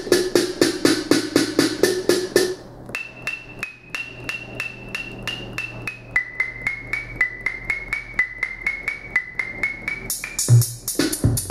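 Maschine drum-kit samples fired in quick repeated hits from iPad pads, about four to five a second, while the pitch bend moves their pitch. They jump higher about three seconds in, drop about six seconds in and then slowly glide back up. A deeper, bassier hit comes near the end.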